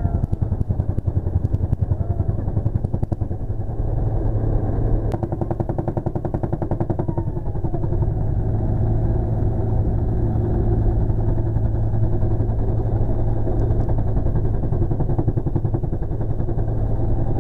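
Bell UH-1 Huey helicopter in flight, heard from inside the cabin: the steady drone of its turbine engine and transmission under the fast, even beat of the two-bladed main rotor.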